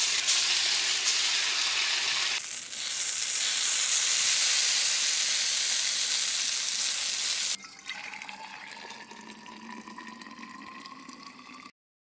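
A loud, steady hiss that sounds like rushing water or sizzling. It stops abruptly about seven and a half seconds in, leaving a much quieter background with a few faint, drawn-out rising whistles. It then cuts to dead silence just before the end.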